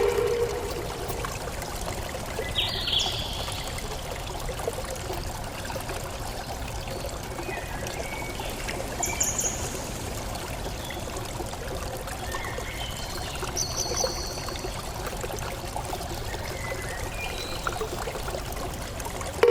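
Water flowing and trickling steadily, with a few short high-pitched chirps about three, nine and fourteen seconds in.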